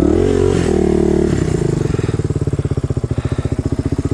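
Motorcycle engine running, revved up briefly at the start and held for about a second before dropping back to a steady, evenly pulsing idle.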